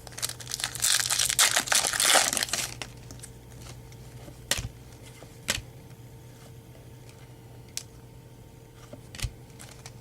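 Foil wrapper of a baseball card pack being torn open and crinkled for about two seconds, followed by a few separate sharp clicks of card handling.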